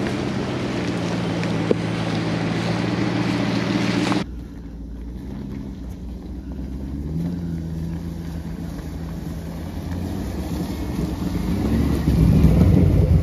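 Off-road 4x4 engines running at low speed on a dirt forest track. After an abrupt change about four seconds in, a Jeep Grand Cherokee WJ climbs toward the listener and passes close by, its engine growing louder and loudest near the end.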